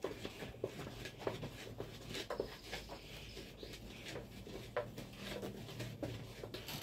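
A long stick scraping and knocking against the inside of a hollow dried gourd, irregular strokes roughly twice a second, as it is worked around to coat the gourd's interior with soot.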